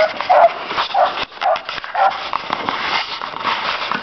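A pack of hunting beagles barking as they run a trail after game. Short barks come about two a second at first, then turn fainter and less distinct after about two seconds.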